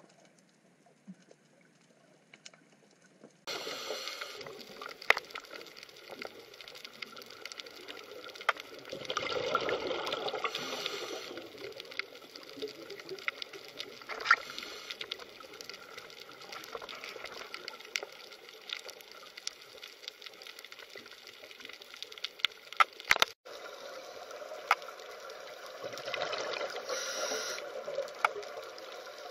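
Underwater ambience: a steady hiss scattered with many sharp clicks, starting abruptly about three and a half seconds in after a quieter opening. Twice, around ten seconds in and again near the end, a louder rushing, gurgling swell of water noise rises and fades.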